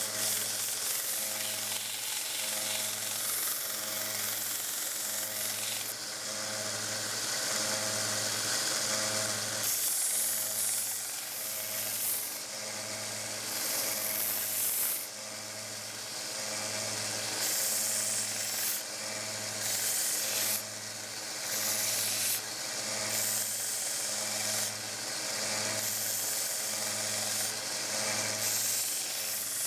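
WEN 1x30 belt sander running with a 120-grit belt, grinding the steel of a pair of pliers in repeated passes. Its steady motor hum runs under a hiss that rises each time the metal is pressed to the belt and drops as it is lifted off.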